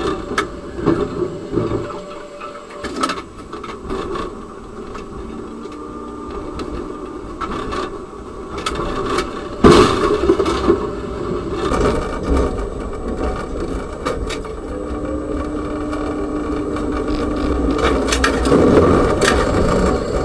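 Rumble and rattle of a tram running on its rails, heard from inside the driver's cab. About halfway through there is a single sudden loud bang, the tram colliding with a vehicle crossing its path. Later comes a steady hum lasting a few seconds.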